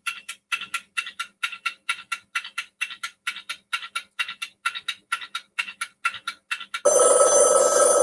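Countdown timer sound effect: rapid, even ticking at several ticks a second, then about seven seconds in a loud alarm that sounds for about two seconds, signalling that the time is up.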